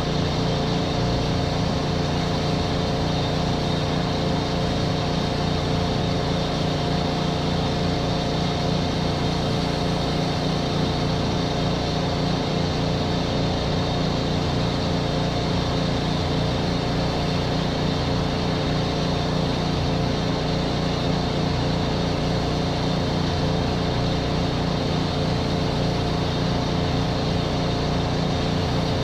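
Pressure washer's gas engine running steadily at constant speed, with a steady hiss over it.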